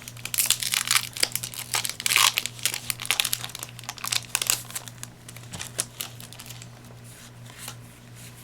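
Foil trading-card booster pack wrapper crinkling and tearing as it is handled, a dense crackle for about six seconds that then dies down.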